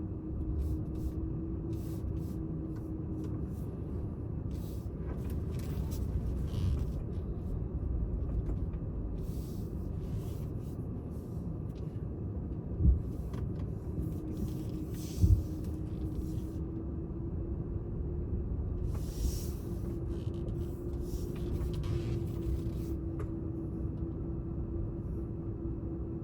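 Steady low rumble of a motor vehicle on the road, with a constant drone and two sharp thumps about two and a half seconds apart near the middle.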